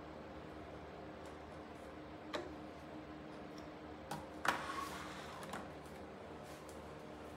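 Light plastic clicks from a Miyako KAD-1207 12-inch desk fan as its head is tilted and turned by hand, about four clicks in all, the loudest about four and a half seconds in.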